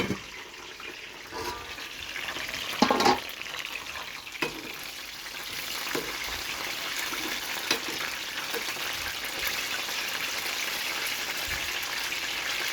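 Chicken wings frying in hot oil in a pan, giving a steady sizzle with a few short sharp clicks and knocks.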